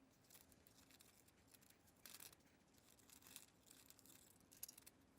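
Near silence, broken by a few faint, brief snips and rustles of scissors cutting a paper template, about two seconds in, again a little later, and near the end.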